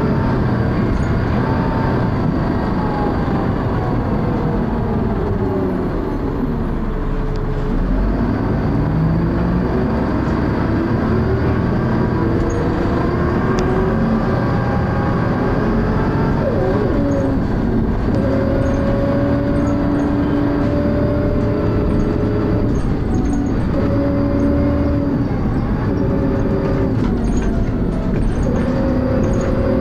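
Dennis Arrow double-decker bus with a ZF automatic gearbox, heard on board: engine and transmission whine falls as the bus slows, then rises again as it pulls away and changes up, and holds fairly steady with small shifts after about eighteen seconds. The gearbox slips, and a faint steady high-pitched whine sits above the engine throughout.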